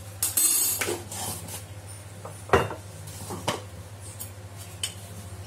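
Metal spoon and kitchen containers clinking and knocking on a countertop: a short rattle near the start, a sharp knock about two and a half seconds in, then a few lighter knocks. A steady low hum runs underneath.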